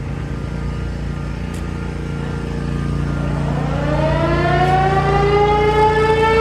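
American Signal Corporation Tempest T-121 eight-port omnidirectional mechanical siren starting up for a steady full-alert test. About halfway through its tone comes in and winds up, rising in pitch and growing louder, over a low steady rumble.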